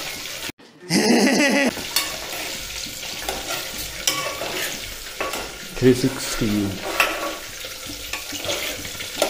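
Potatoes frying in hot oil in a pressure cooker pot, with a steady sizzle while a metal spoon stirs and clinks against the pot's sides. The sound drops out briefly about half a second in.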